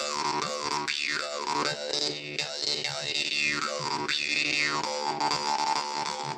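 Ukrainian drymba (jaw harp), the "Veles" model tuned to a low D (D2), being played: a steady low drone with overtones that sweep up and down as the mouth shape changes, roughly once a second, over a repeated plucked pulse.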